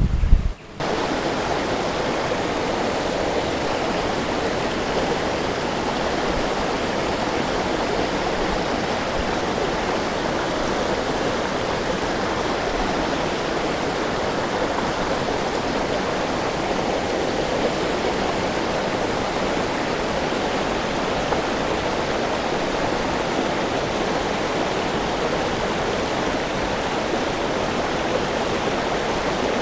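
Fast-flowing stream rapids rushing steadily, an even, unbroken water noise. A brief low rumble comes in the first second.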